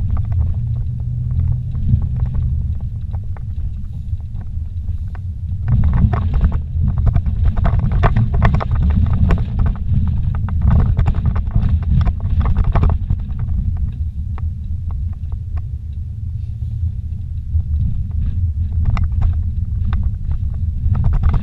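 A vehicle driving slowly over a rough dirt trail, heard from inside the cabin: a steady low rumble of engine and tyres, with bouts of knocking and rattling as it goes over bumps, heaviest from about six to thirteen seconds in and again near the end.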